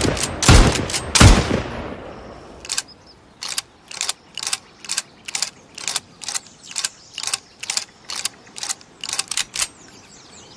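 Winchester lever-action rifle firing its last few quick shots, each echoing away, then about twenty quick metallic clicks, roughly three a second, from the rifle's mechanism. The shots are the loudest part.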